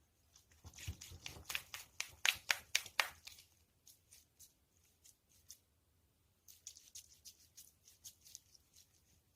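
Hands squeezing and handling soft squishy toys, giving a run of sharp crackling clicks for about two and a half seconds, then a few scattered clicks and a second, softer stretch of crackling later on.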